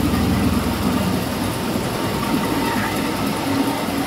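Panko bread crumb production line machinery running: the vibrating sieve screen and conveyor make a steady mechanical noise, with a low hum that weakens after about a second.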